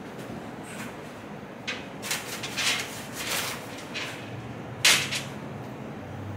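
Rummaging at a workbench: a few spells of rustling and clattering as parts are handled, then one sharp clack about five seconds in, the loudest sound.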